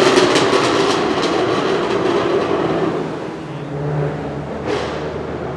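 Tuned BMW 1M's twin-turbo straight-six exhaust firing a rapid machine-gun string of sharp backfire pops and crackles as the revs drop, then settling to a lower engine burble with one more pop near the end. The crackling comes from the tuned exhaust and ECU and resembles a rally car's anti-lag.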